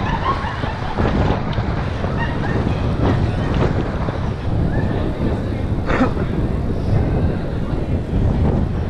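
Wind buffeting a moving camera's microphone, a steady low rumble as the rider travels along the street, with one sharp click about six seconds in.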